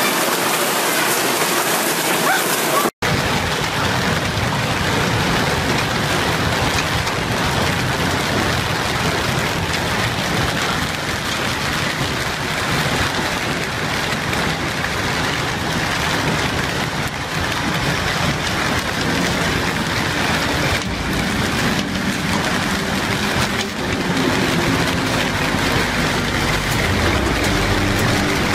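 Hail and heavy rain pelting down in a severe hailstorm, a dense steady clatter and hiss, broken by a sudden cut about three seconds in.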